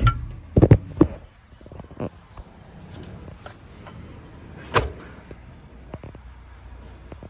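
Zanussi Lindo 300 washing machine door being handled: a quick run of sharp knocks and clicks in the first second, a lighter knock about two seconds in, and another sharp knock near five seconds.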